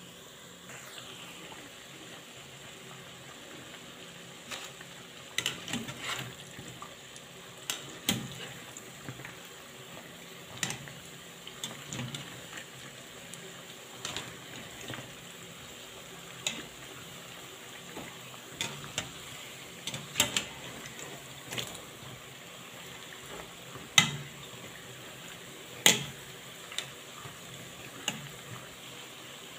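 Half cakes (kangumu dough pieces) deep-frying in hot oil: a steady sizzle, with scattered sharp clicks and knocks of a wire skimmer against the pan, the two loudest a few seconds before the end.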